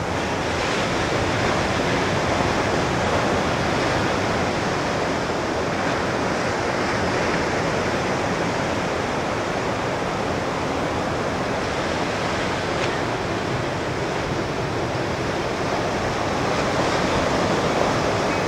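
Ocean surf washing steadily on the shore: an even, unbroken hiss of breaking waves.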